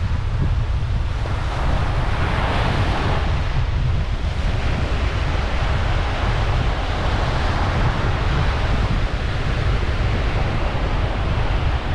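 Surf breaking and washing up the beach, with wind buffeting the microphone in a constant low rumble. The wash swells about two seconds in.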